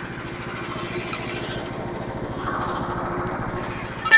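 Small gas engine of a portable band sawmill running steadily, with some rising scraping noise partway through, then one sharp, ringing metallic clank near the end.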